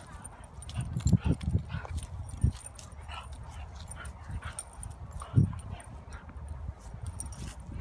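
Two dogs play-fighting, a Staffordshire bull terrier–Rhodesian ridgeback cross and a young white Boxer: irregular short bursts of dog vocalising and scuffling. A cluster comes in the first couple of seconds and the loudest burst about five and a half seconds in.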